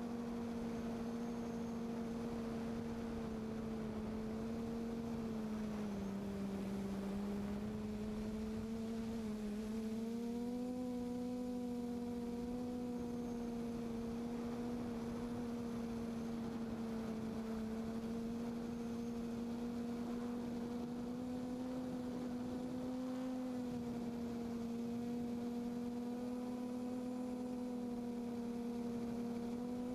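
QAV540G multirotor's electric motors and propellers humming steadily in flight, heard from the aircraft itself. The pitch sags about six seconds in and climbs back around ten seconds as the throttle changes, then holds steady.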